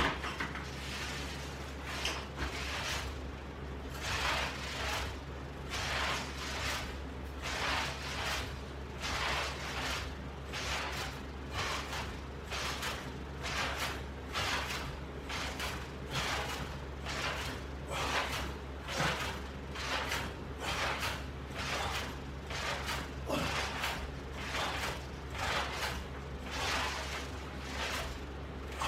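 Rhythmic swishing about once a second, each swish a short burst of breath or movement noise from repeated exercise reps, over a steady low hum.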